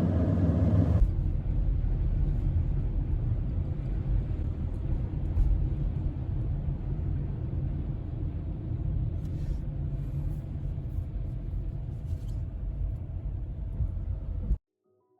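Strong wind buffeting the microphone, a steady low rumble that cuts off abruptly near the end.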